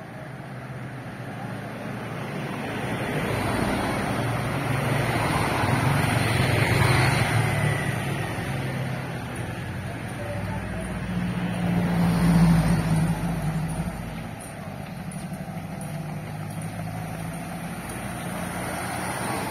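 Cars and motorcycles passing along the road: a steady engine hum that swells twice as vehicles go by, loudest with a deep rumble about two-thirds of the way through.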